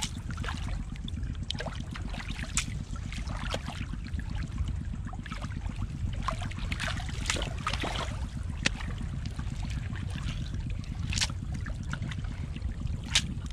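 Hands sloshing and scooping through wet mud and shallow seawater while digging clams, with a few sharp clicks of clam shells knocking together, over a steady low rumble.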